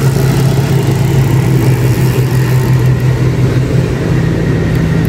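An engine running steadily, a constant low hum that does not rise or fall.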